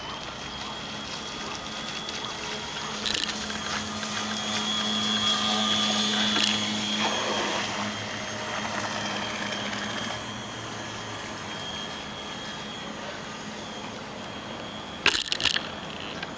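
Geared brushed electric motor and propeller of an R/C model boat running with a steady hum and whine, growing louder as the boat passes close by about halfway through and then fading away. Two short crackles of noise cut in, about three seconds in and, louder, near the end.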